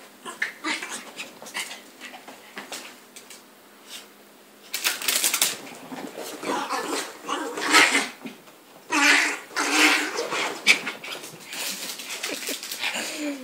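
Two Maltese puppies playing rough, with short yaps and the scuffle and scratch of paws in several loud bursts.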